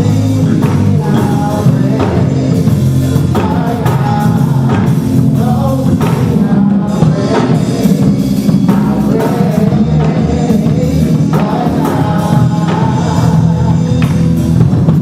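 Live gospel praise music: a band with drum kit playing a steady beat under singing.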